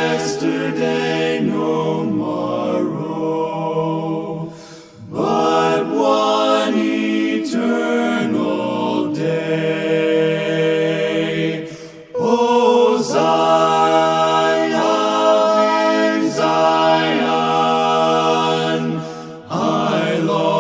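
A group of voices singing a hymn a cappella in long held phrases, with short breaks for breath between lines.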